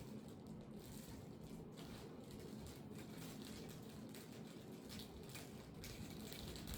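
Faint, soft scrapes and crinkles as tomato sauce is spread over chicken breasts on a parchment-lined baking tray, over a steady low room hum.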